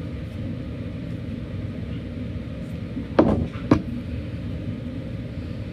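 Scissors snipping tulle twice in quick succession, about three seconds in, over a steady low background rumble.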